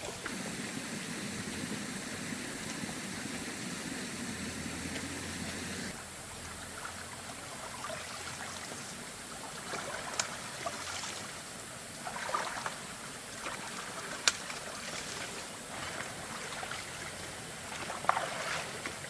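Running water with a steady rush like a small stream, and a few light knocks and clicks now and then.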